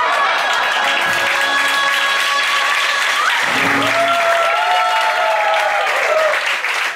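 Live audience applauding and cheering as a cabaret song ends, with the last held notes of the music dying away under the clapping in the first few seconds.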